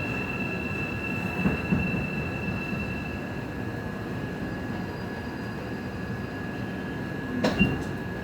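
Busan Metro Line 3 train slowing into a station. A high steady wheel or brake squeal fades out about three seconds in over the running noise, and a sharp clunk comes near the end.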